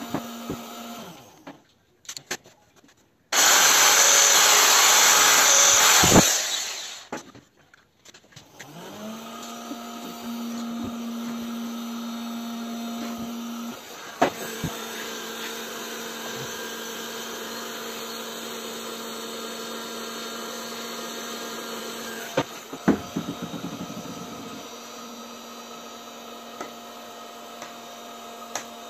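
An electric drill's motor spinning up with a rising whine and then running steadily, used to drill stop holes at the ends of a crack in ABS plastic. A few seconds in there is a short, loud burst of rushing noise, and a couple of sharp clicks come later.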